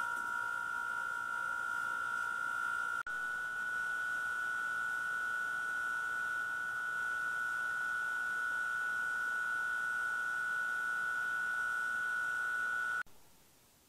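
A steady, high-pitched electronic tone runs unchanged across two trail-camera clips and cuts off suddenly near the end. For the first few seconds a faint metal wind-chime ring fades under it.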